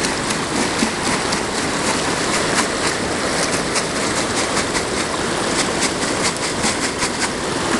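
Gravel rattling and clicking inside a Gold Fever bucket classifier as the stacked plastic buckets are shaken, sifting the gravel through a screen. Behind it, the steady rush of a creek.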